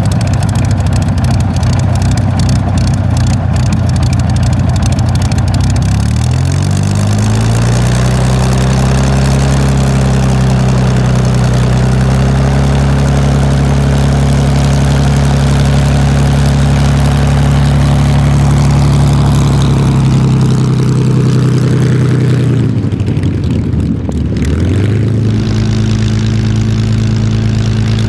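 Rolls-Royce Merlin V12 engine of a Supermarine Spitfire running steadily. Its pitch rises about six seconds in and holds. Near the end it dips briefly, then settles at a lower, steady pitch.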